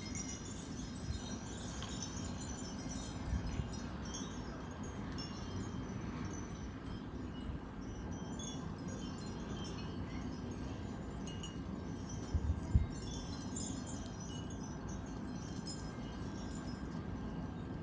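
Wind chimes tinkling irregularly in the storm wind, over a low rumble of wind on the microphone, with one brief low thump about two-thirds of the way through.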